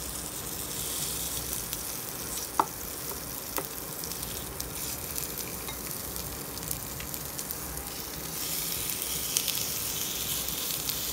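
Marinated chicken breast pieces sizzling in hot avocado oil in a frying pan as they are added, with a couple of light knocks early on. The sizzle grows louder about eight seconds in, as more pieces go into the pan.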